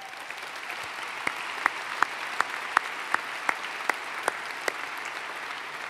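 Audience applauding, swelling over the first second and then steady. Through the middle, one person close to the microphone claps about ten times, evenly, a little over two claps a second; these are the loudest sounds.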